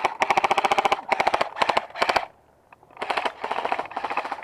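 Airsoft rifle firing several short fully automatic bursts, a rapid, even clatter of shots. There is a pause of under a second near the middle, then more bursts.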